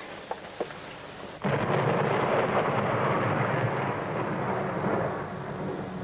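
A sudden thunderclap about a second and a half in, rumbling on and slowly fading, with a couple of soft clicks before it.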